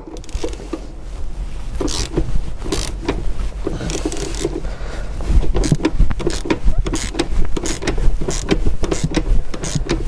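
Hand ratchet with a Torx 50 socket clicking in short repeated strokes as it works a threadlocked front seat-track bolt loose; the bolt is stiff because of the threadlocker. The clicking gets a little louder about halfway through.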